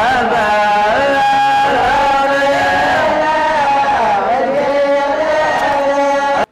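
Young men's voices chanting a devotional mawlid song in praise of the Prophet, a lead voice on a microphone with the group, in long held notes whose melody rises and falls.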